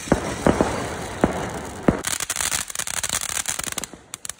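Ground fountain fireworks spraying sparks: a steady hiss with a few sharp pops in the first two seconds, then dense rapid crackling from about two seconds in as the sparks burst.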